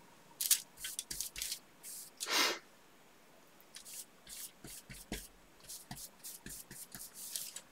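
Faint scratchy strokes of a flat paintbrush dabbing and dragging watercolour across wet cotton fabric, coming in short runs. One louder breath is heard about two and a half seconds in.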